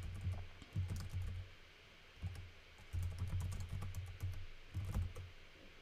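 Typing on a computer keyboard: bursts of quick key clicks with low thuds, in several short runs broken by pauses.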